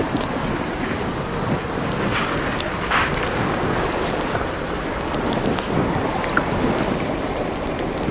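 Heavy rain falling steadily, with many sharp ticks of drops striking a surface, over a low rumble of thunder. A steady high-pitched tone sits above the rain.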